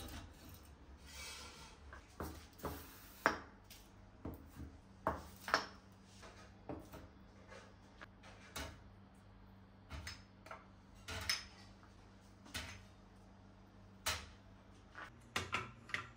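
Kitchen items being handled and set down: scattered light knocks and clicks, with a brief rubbing or scraping sound about a second in, over a faint steady hum.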